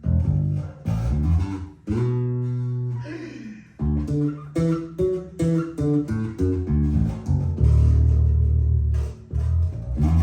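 Fodera Emperor 2 Elite electric bass played solo: plucked notes, one held and ringing for about two seconds, then a quick line of short notes and a long low note near the end.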